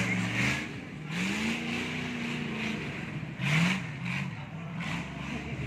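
Off-road 4x4 truck's engine revving hard under load as it churns through mud and up a muddy mound. The pitch rises, holds and falls, with loud bursts of revs at the start and again about three and a half seconds in.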